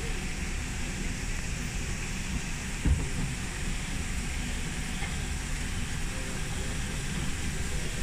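Safari tram running with a steady low rumble, and a single knock about three seconds in.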